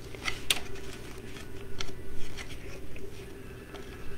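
Deco mesh rustling and crackling as it is handled and pulled on the wreath frame, in a handful of short, irregular bursts.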